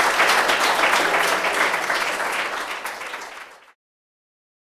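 Audience applauding, a dense patter of many hands clapping that fades and then cuts off to silence a little over three and a half seconds in.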